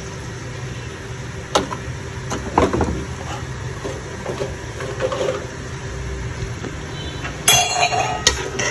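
Pot of rice and water boiling hard on a gas stove: a steady bubbling rumble. A few sharp clinks, two of them louder near the end.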